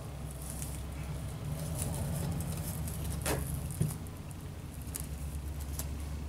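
Fabric of a Roman shade rustling, and its hook-and-loop (Velcro) strip crackling faintly as hands press the shade onto the head rail. There are a couple of small clicks about three and a half seconds in, over a steady low hum.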